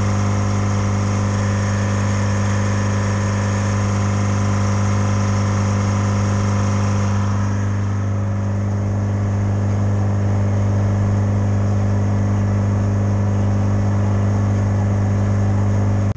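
Diesel engine of a Speed Swing hi-rail loader running steadily under load as it pushes snow along the track with its bucket: a low, even drone that holds one pitch. About seven seconds in, the sound turns duller.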